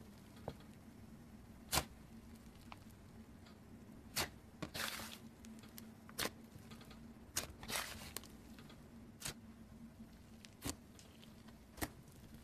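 Green slime being pressed and poked by hand, giving sharp pops and clicks about once a second, with two longer crackling stretches in the middle, over a faint steady hum.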